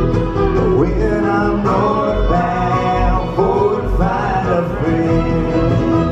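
A live bluegrass band playing: fiddle, mandolin, banjo, acoustic guitar and upright bass together, with a sliding, wavering melody line over a steady bass pulse.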